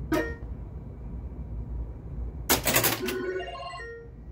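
Bally Harlem Globetrotters solid-state pinball machine switched on: a click, then a brief clatter about two and a half seconds in, followed by a quick run of electronic beeps at changing pitches from the sound board.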